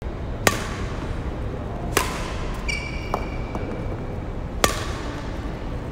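Badminton racket striking a shuttlecock three times, each a sharp crack with a brief ring from the strings, about a second and a half to two and a half seconds apart. A shoe squeaks once on the wooden court floor between the second and third hits.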